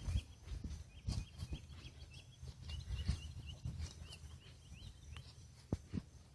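Small birds chirping over and over, with soft low thuds of footsteps on the ground and a single sharp click near the end.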